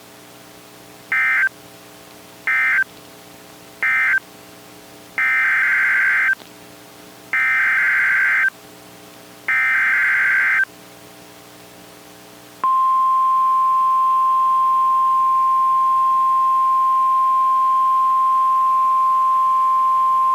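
NOAA Weather Radio SAME emergency-alert data bursts: three short end-of-message bursts, then three longer header bursts a second or so apart, the digital code that opens a new warning. About twelve and a half seconds in, the steady single-pitch 1050 Hz Warning Alarm Tone begins and holds, with a faint low hum beneath the bursts.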